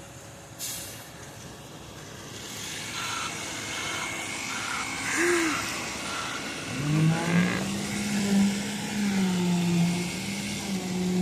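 A motor on a concrete pour spins up about seven seconds in and then runs at a steady pitch, over a general din of site noise. There is a short sharp knock about half a second in.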